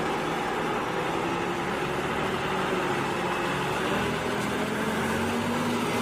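Mercedes-Benz Axor fire engine's diesel engine running as the truck pulls out and drives past: a steady engine and road noise.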